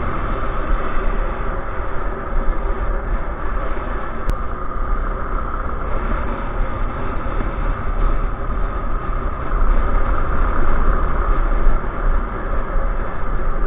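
Suzuki Djebel 200 motorcycle running steadily at road speed, heard from a camera mounted on the bike, with heavy low wind rumble on the microphone.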